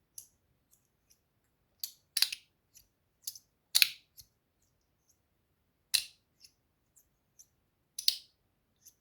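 Stainless steel fidget slider being worked by hand: its plates slide and snap into place in a series of sharp metallic clicks at irregular intervals, about half a dozen strong ones with fainter ticks between.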